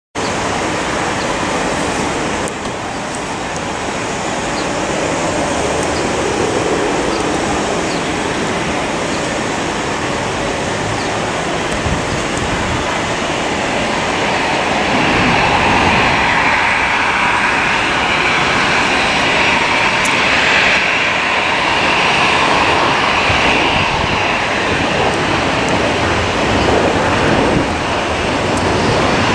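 Steady noise of jet airliner engines. It grows louder, with a whine coming in about halfway through.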